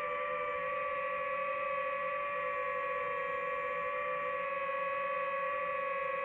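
DJI FPV drone's motors and propellers whining steadily in flight, a held multi-tone hum with small wavers in pitch.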